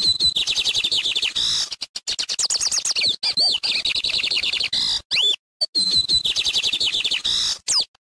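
Lined seedeater (bigodinho) singing loudly: a held high whistled note leading into rapid runs of short, sweeping notes and trills. The phrase comes twice, with a brief pause a little past halfway.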